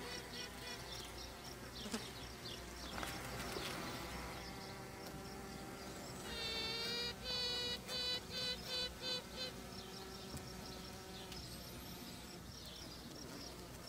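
Honeybee queen piping in the hive: a run of short high notes at the start, then about six seconds in one long note followed by a string of shorter ones. Underneath, the steady hum of the bees crowded on the comb.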